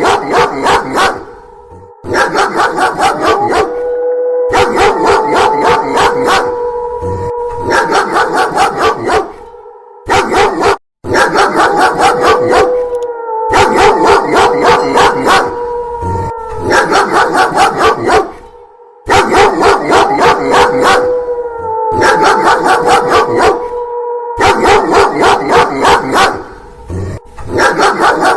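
A dog barking fast and loudly in repeated runs of about two seconds, layered over a long wolf howl that holds one pitch and slides down at the end of each phrase. The pattern repeats over and over like a looped sound effect.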